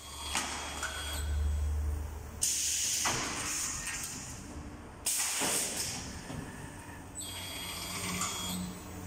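Lid wrapping machine running, with sudden hisses of compressed air from its pneumatic cylinders; the two loudest start sharply about two and a half seconds apart, over a low motor hum and some high mechanical whine.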